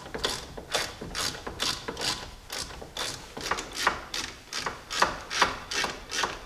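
Hand ratchet clicking in steady back-and-forth swings, about two a second, running in the bolts of a front wheel hub unit bearing to draw it into the knuckle for a press fit.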